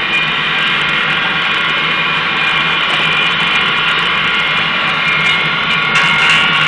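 Home-made double-walled stove burning hard with air forced in through a side hose: a steady, loud roar of blown air and flame with a high, even whine over it.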